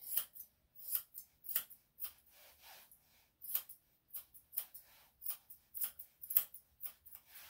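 Grooming scissors snipping a Yorkshire terrier's facial hair: a run of short, crisp snips, irregular and a couple a second, with a brief pause about three seconds in.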